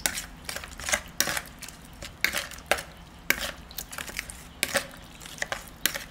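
A spoon stirring wet minced-pork-and-chilli dressing and scraping against a ceramic bowl, with irregular sharp clinks and short scrapes about twice a second, as the Thai salad dressing is mixed together.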